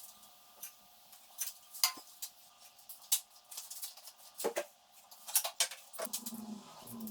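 Irregular light metallic clinks and clicks from metal objects being handled, with a few sharper knocks about two seconds in and again past the five-second mark.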